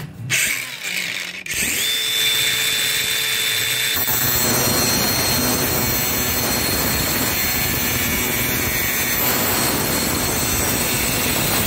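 DeWalt angle grinder spinning up with a steady high whine, then cutting through the aluminium pocket-door track from about four seconds in, a dense, even grinding noise that holds steady to shorten the track.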